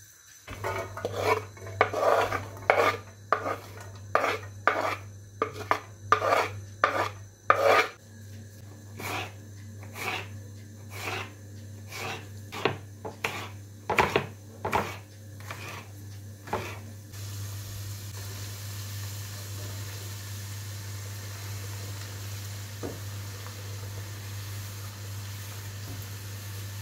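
A knife slicing an aubergine on a wooden chopping board: a run of knocking strokes, about two a second, loud at first and softer later, stopping about two-thirds of the way in. After that comes a steady hiss over a low hum.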